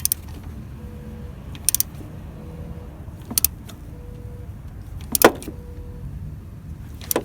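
Metal tools clinking and tapping against the alternator bracket and bolt while the loose drive belt is being tightened, a few sharp clinks a second or two apart, the loudest about five seconds in.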